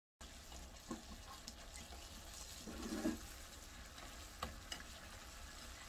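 Red yangnyeom sauce sizzling and bubbling in a frying pan as fried chicken pieces are turned in it with wooden chopsticks. The chopsticks click against the pan a few times, and the loudest clatter comes about three seconds in.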